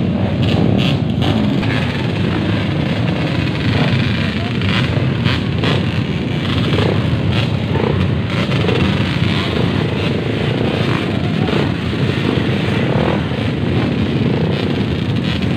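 Many dirt bike engines running and revving together in a loud, steady din, with people's voices underneath.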